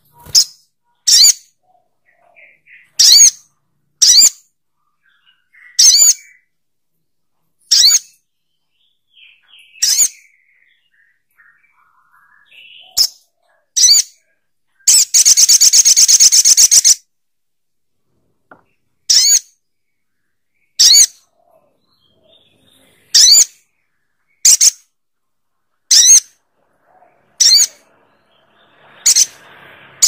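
Male olive-backed sunbird (sogok ontong) calling: loud, short, sharp high notes every second or two, with a fast rattling trill lasting about two seconds halfway through.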